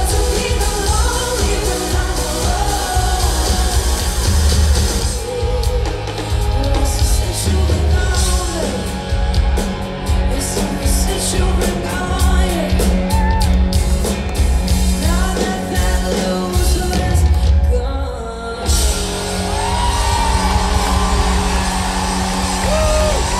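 Live pop-rock concert heard from within the audience: a woman singing lead over a full band with heavy bass and drums, crowd yells mixed in. The upper range drops back from about five seconds in and the full band returns near the end.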